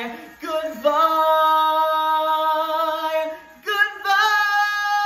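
Unaccompanied male singing voice holding two long sustained notes, the second one higher, with a short break between them.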